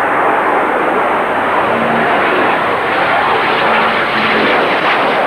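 English Electric Canberra jet bomber taking off and climbing away, its two Rolls-Royce Avon turbojets giving a loud, steady jet roar.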